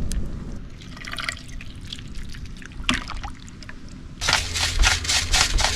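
Liquid trickling and dripping as sauce ingredients go into a pot, over a low rumble of strong wind on the microphone. About four seconds in, a quick run of sharp ticks and clatters starts.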